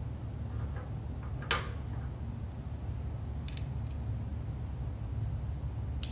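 Small metal letter cubes clicking as they are handled and set down on a wooden table, with the loudest click about a second and a half in and two short ringing metal clinks around the middle. A steady low room hum runs underneath.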